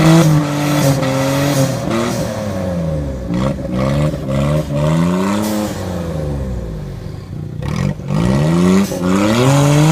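Off-road vehicle's engine revving up and down repeatedly as it works through a mud course.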